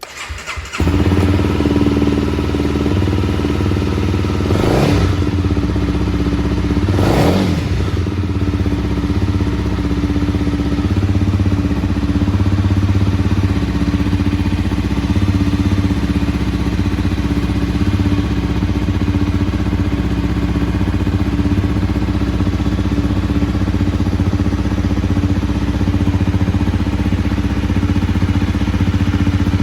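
Honda CB250R single-cylinder engine breathing through an aftermarket Beams silencer and Tadao header pipe: a brief crank on the starter, the engine catches within a second, two short throttle blips about five and seven seconds in, then a steady idle.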